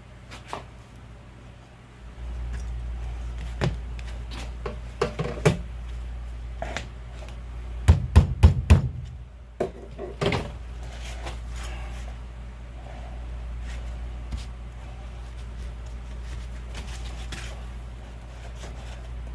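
Clicks and knocks of hand work on a CV axle joint while a new rubber boot is forced on, with a quick cluster of four sharp knocks about eight seconds in and another knock about two seconds later, over a steady low hum that starts about two seconds in.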